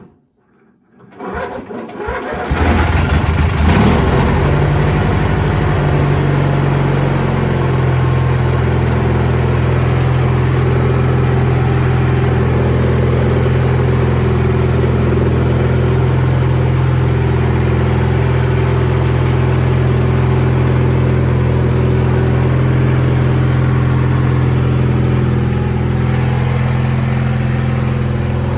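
Craftsman GT18 garden tractor engine starting: it catches about two seconds in, revs up briefly, then settles into steady running. It is being run to stir up the old oil before an oil change.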